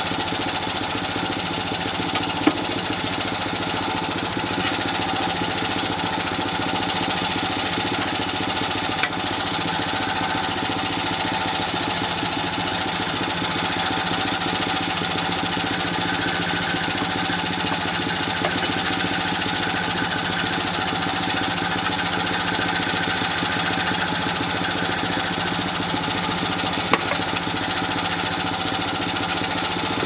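Wood-Mizer LT10 sawmill's engine running steadily, not cutting, with a few sharp knocks as a cant hook is worked against the log.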